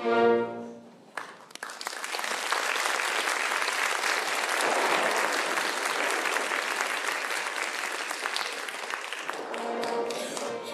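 An opera orchestra's closing chord cuts off about half a second in, then a theatre audience applauds steadily. The orchestra starts playing again near the end as the applause fades.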